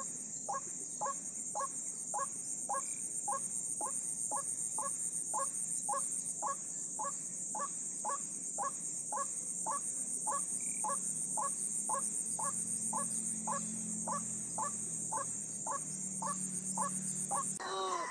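A bird's call repeated with very even timing, about two short calls a second, over a steady high-pitched hiss that cuts off near the end.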